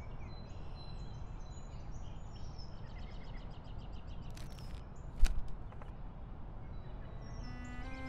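Birds chirping and calling over a steady low outdoor rumble. About four and a half seconds in there is a brief rustle, then a sharp thump just after, the loudest sound. Music comes in near the end.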